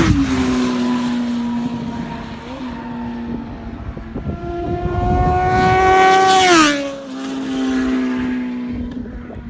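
Motorcycles riding past one after another. One passes close about two-thirds of the way in, getting louder and then dropping sharply in engine pitch as it goes by, and the engine sound fades toward the end.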